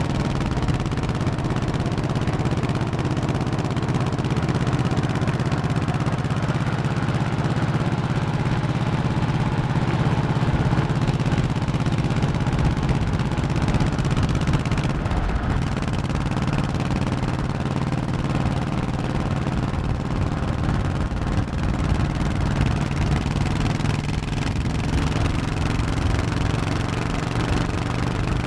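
1100cc Honda motorcycle engine running steadily while riding, its note dipping briefly about halfway through and then settling back.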